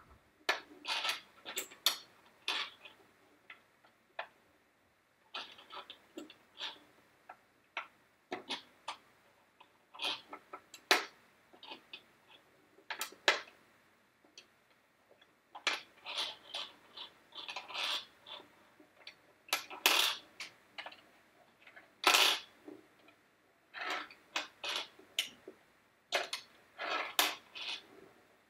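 Plastic pegs being set one at a time into the holes of a nine-hole pegboard, then pulled out and dropped back into the board's tray. The result is a string of irregular light clicks and clatters.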